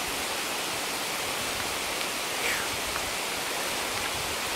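Steady rain falling through the forest, an even hiss on the leaves and ground.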